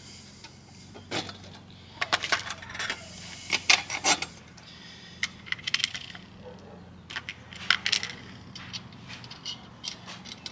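Loose steel nuts and bolts clinking against each other and a plastic bowl as a hand rummages through them, in several short flurries of clinks with pauses between.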